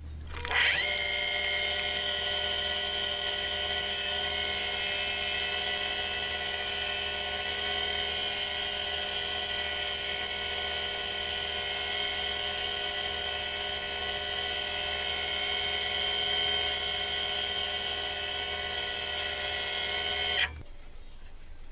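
Harbor Freight mini lathe running with a steady whine as it turns a purpleheart blank, starting up about half a second in and shutting off abruptly near the end.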